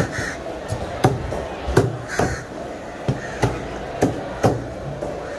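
Heavy cleaver chopping tuna against a wooden chopping block: sharp, irregular knocks, about eight in a few seconds.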